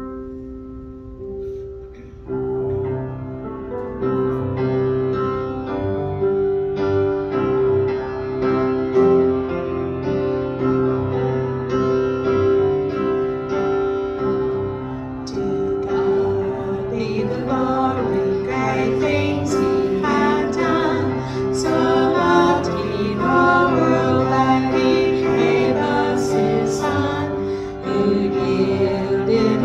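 A hymn played on a keyboard, opening with sustained held chords, with voices joining in singing about halfway through.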